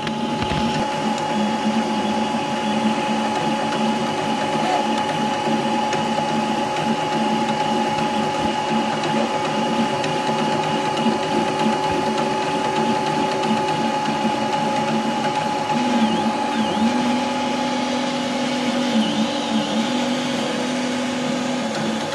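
Robo3D desktop 3D printer running a print. Its stepper motors whine at pitches that shift as the print head moves, over a steady hum.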